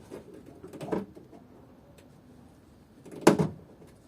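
Hand pop-rivet gun at work setting the window regulator's rivets: two sharp clacks, one about a second in and a louder one about three seconds in.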